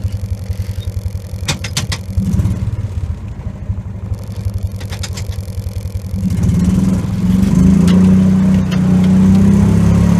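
Side-by-side utility vehicle's engine running at low speed with a pulsing rumble while towing, then growing louder and steadier about six seconds in as it speeds up. Brief rattles come about a second and a half in and again near five seconds.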